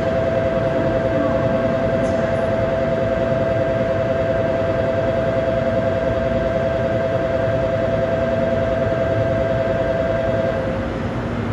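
A steady two-note electronic tone sounds over the constant hum of a shinkansen platform, with the high-speed test train standing ready to leave. The tone cuts off about ten and a half seconds in.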